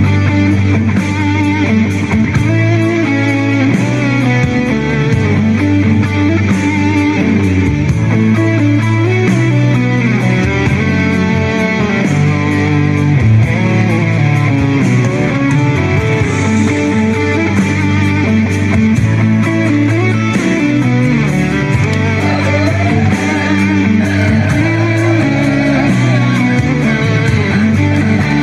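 Background music: an instrumental rock track led by electric guitar over a steady bass line.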